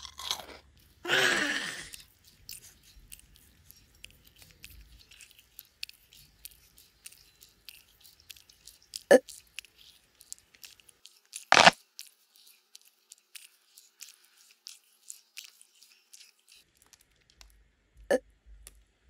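Kitten eating dry kibble from a bowl: a long run of small, rapid crunches, with a few louder knocks, the loudest about halfway through.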